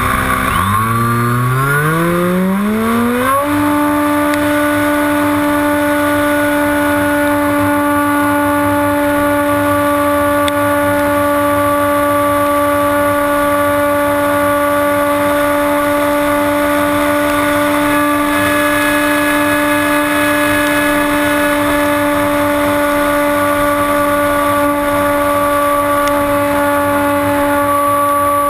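Electric motor and pusher propeller of a HobbyKing Bixler RC glider, heard from on board the plane. The whine dips just after the start, rises steadily in pitch over about three seconds as the throttle is opened, then holds one steady pitch.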